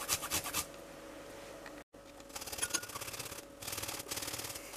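Fresh ginger root being grated on a fine flat metal grater: quick, repeated rasping strokes, broken by a short pause about halfway through.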